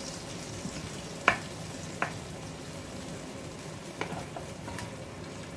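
Pork and pineapple in a thick, nearly reduced braising sauce sizzling steadily in a nonstick pan while a spatula stirs through the pieces. The spatula knocks sharply against the pan twice, about a second and two seconds in, and more lightly near four seconds.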